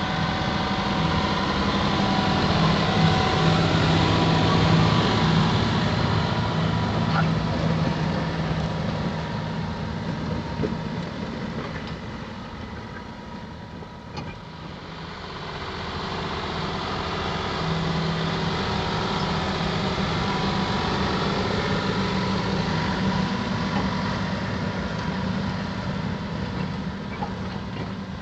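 John Deere 6175R tractor engine running under load while pulling a reversible plough. It grows louder to a peak about five seconds in, fades to its quietest about halfway through, then grows louder again and holds steady.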